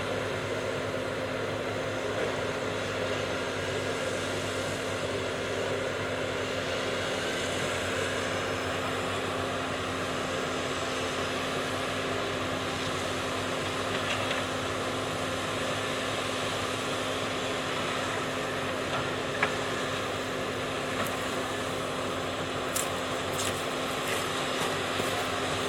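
Heavy logging machinery running steadily, a diesel engine's continuous hum with a few sharp clicks or knocks near the end.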